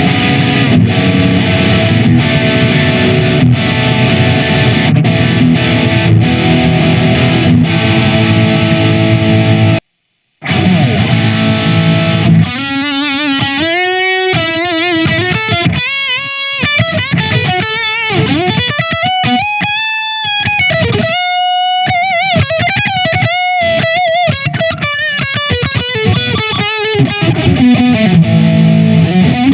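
SQOE SEST250 HSS electric guitar played with distortion: thick sustained chords for about ten seconds, a short silent break, then single-note lead lines with string bends and vibrato.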